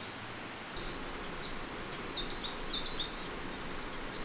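Small birds chirping: a couple of quick runs of short high chirps over a steady outdoor background hiss.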